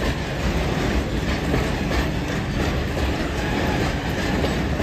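Heavy freight train of open wagons loaded with coal rolling past: a steady low rumble with the wheels clacking over rail joints about once a second.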